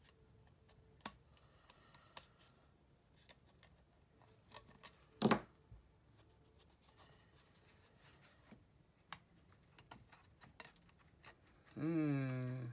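Small hand tools and stiff wire handled on a cutting mat: scattered light clicks and taps from needle-nose pliers and wire, with one louder knock about five seconds in. A brief voice near the end.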